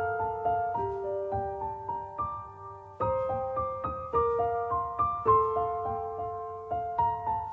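Background music: a slow, gentle piano melody of single struck notes, each ringing and fading, with a short pause just before a new phrase begins about three seconds in.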